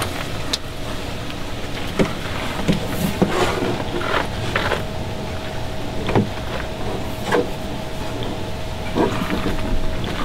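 Hose and plastic plumbing fittings being handled and pushed together, giving a scattered series of short knocks and clicks over a steady background hum.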